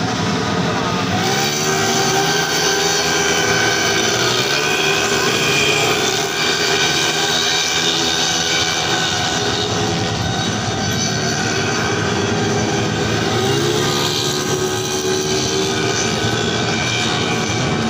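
Several 130cc automatic scooters racing, their engines running at high revs in an overlapping drone, with the pitch rising as riders accelerate about a second in and again near the end.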